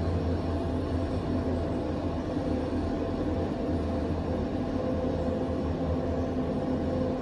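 KONE glass elevator car travelling in its shaft: a steady low hum and rumble of the ride, with a few constant humming tones.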